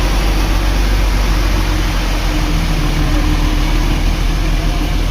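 Bus engine running steadily, a continuous low drone with no horn sounding.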